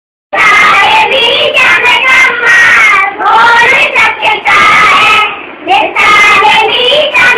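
A group of young children singing a manqabat, a devotional poem in praise of Imam Ali, together and loudly. Their voices start about a third of a second in and run on in phrases with short breaths between them.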